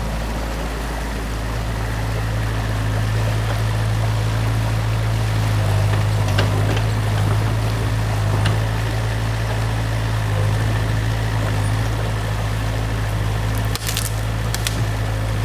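Mini excavator's diesel engine running steadily as the hydraulic boom moves, over water rushing through a breach in a beaver dam. A few sharp clicks come near the end.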